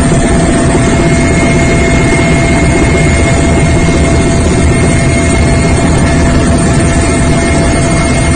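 Aircraft cabin noise: the steady, loud drone of the aircraft's engine heard from inside the cabin, with a few steady hum tones running through it.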